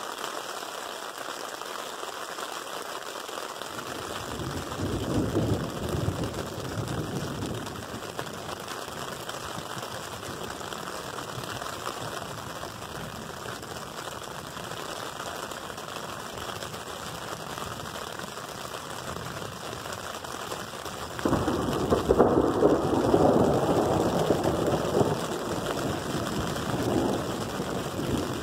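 Thunder rumbling over a steady hiss of rain: a low rumble swells about five seconds in, then a much louder peal breaks suddenly about twenty-one seconds in and rolls on for several seconds.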